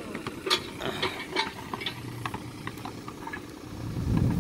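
John Deere 35D compact excavator's diesel engine running steadily, with a few sharp clicks and knocks in the first second and a half. The low engine sound swells louder near the end.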